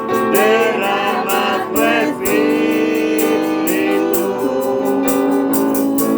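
Worship chorus sung by male and female voices over electronic keyboard accompaniment with a steady beat.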